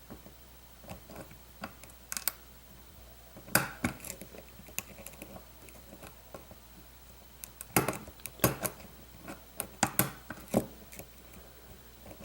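Crunching and clicking of a pin tumbler lock being picked with a hook pick and a tension tool: short, sharp clicks come irregularly and in small clusters as the pins are pushed and set in the plug.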